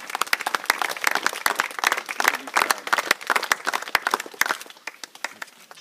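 A small crowd applauding: many hands clapping irregularly, thinning out and dying away near the end.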